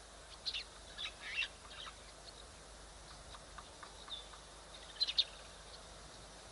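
Scattered short, high-pitched chirps and twitters over a faint steady hiss, the loudest a quick pair about five seconds in.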